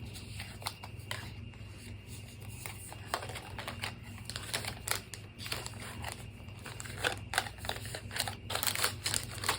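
Packaging being handled and unwrapped by hand: scattered rustling, crinkling and tearing with small clicks, busier and louder in the last few seconds.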